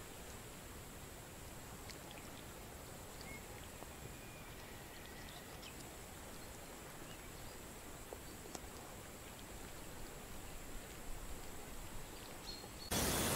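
Faint riverbank ambience: a steady low hiss of moving water and air with a few faint, short chirps and ticks scattered through it. Near the end the background suddenly jumps louder.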